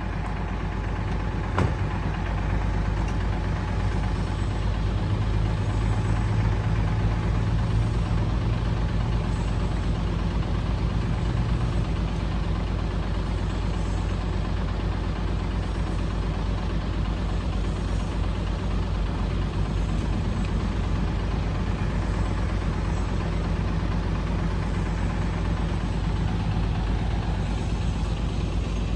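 Heavy truck engine running steadily at a low, even pace, with one sharp click about a second and a half in.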